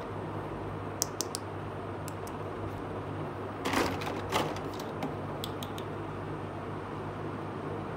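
Small plastic toy dishes clicking and tapping as they are handled and set down, with a short burst of clatter about halfway through, over a steady low hum.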